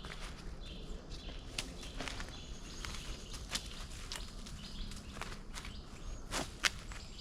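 Footsteps and rustling in dry forest leaf litter, with a few scattered sharp clicks or snaps.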